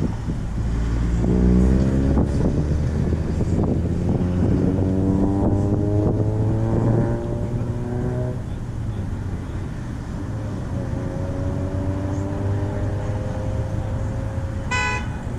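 Street traffic: passing vehicles accelerate away over a steady low traffic rumble, engine pitch rising in two climbs with a gear change between. A slower rising engine tone follows, and a brief high-pitched sound comes near the end.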